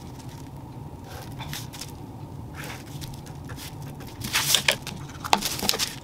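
Faint scratching of a felt-tip marker drawing on tracing paper, then loud rustling and crinkling of the thin tracing paper in two bursts in the second half as the sheet is moved across a cutting mat.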